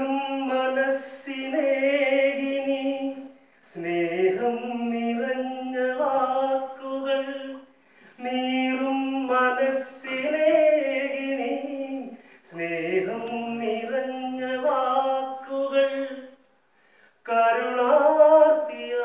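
A man singing solo without accompaniment, in phrases of about four seconds separated by short pauses.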